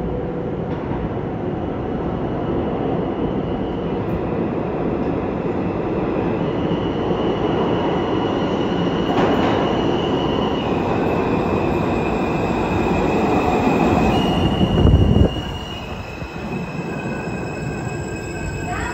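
R160A-2 subway train pulling into an underground station, a heavy rumble that builds as it comes in, with high steady squeals from the train from about four seconds in. The noise drops suddenly about three-quarters of the way through as the train slows alongside the platform.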